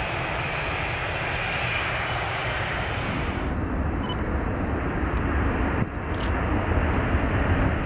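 Jet engines of a four-engined Qantas Boeing 747-400ER running as it moves on the runway, a steady jet noise that grows louder near the end.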